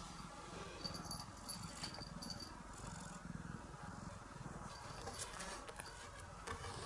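A domestic cat purring close up as it rubs against the camera, its fur brushing the microphone now and then. A small collar bell tinkles a few times in the first couple of seconds.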